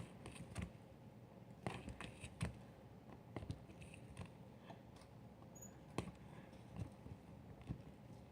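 Sparse quiet clicks and small crackling ticks at irregular intervals, from slime topped with foaming soap being handled in a jar.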